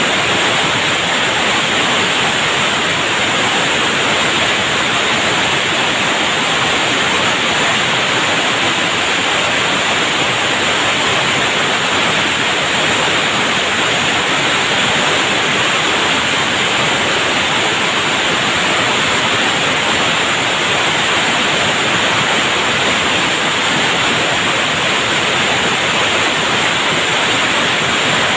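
Liquid oxygen tank trailer venting gas from its top vent during unloading: a loud, steady hiss that does not change.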